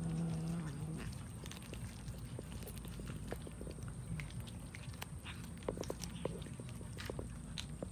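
A cat chewing raw fish: irregular wet clicks and crunches of its teeth on the flesh and bones. A short low-pitched call sounds at the very start.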